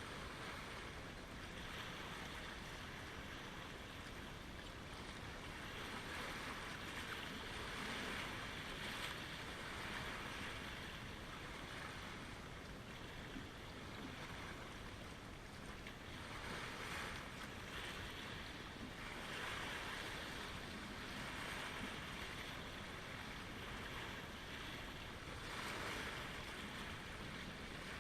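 Small lake waves lapping at the shoreline: a steady wash of water that swells and eases every few seconds.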